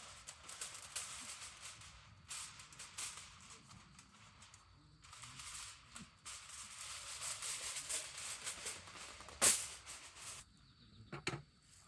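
Rustling and rattling in irregular bursts of a few seconds each, with a sharp knock about nine and a half seconds in and a few more knocks near the end.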